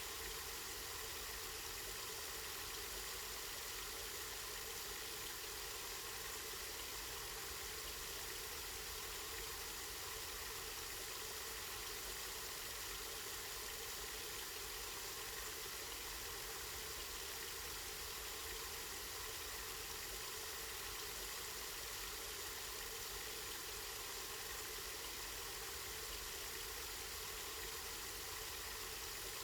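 Water of a spring flowing and splashing steadily, an even hiss with no breaks.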